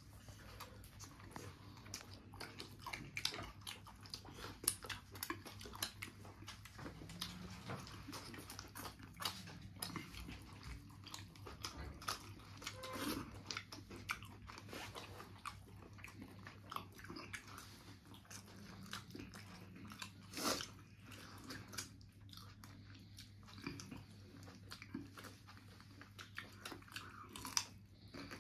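A person eating curry with roti: chewing and biting, with irregular crunches and clicks, over a steady low hum.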